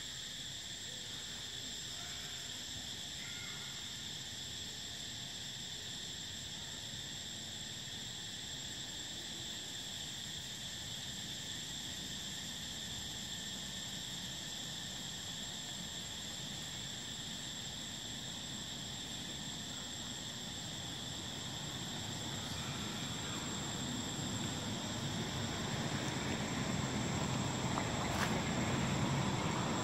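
Steady insect chorus in the forest, holding two unbroken high-pitched tones. A low rumble swells in over the last third.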